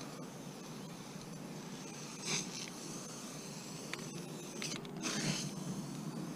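A few short, scratchy rubbing strokes of touch-up painting on a truck's bodywork, the clearest about two seconds and about five seconds in, over a steady low background noise.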